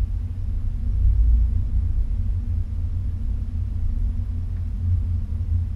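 Steady low rumble of an Acura car heard from inside the cabin as it drives: engine and road noise.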